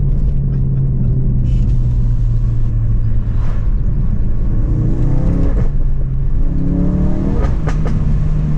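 Car engine heard from inside the cabin, driven through curves: it runs steadily, then revs rise about halfway through, drop with a gear change, and rise again. A few sharp cracks come near the end.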